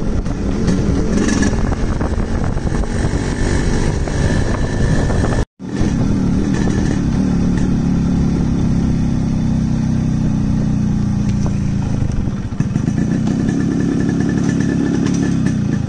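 Yamaha RX100's two-stroke single-cylinder engine running through a loud exhaust, with the revs dropping and then rising again. The sound cuts out sharply for a moment about five and a half seconds in, then comes back.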